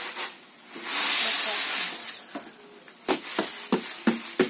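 Raw rice poured from a bamboo winnowing tray into a steel bowl: a loud hiss of grains sliding off the tray and pattering into the bowl for about a second. Near the end comes a run of about six sharp knocks as the tray is tapped against the bowl to shake off the last grains.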